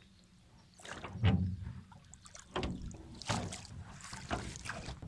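Oars of a small rowing boat dipping and pulling through the water, several splashing strokes about a second apart.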